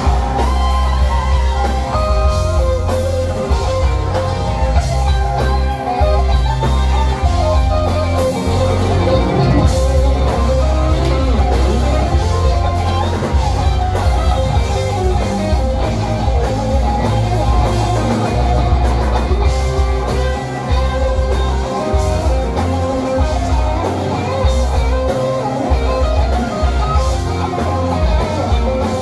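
Live rock band playing, heard from within the crowd: electric guitar to the fore with bending notes, over drums and a heavy bass line.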